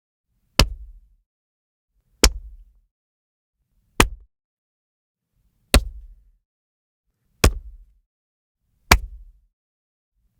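Six separate cinematic body-hit sound effects, made by layering different impact sounds. Each is a sharp crack with a short low thud trailing off, one about every second and a half to two seconds, with silence between.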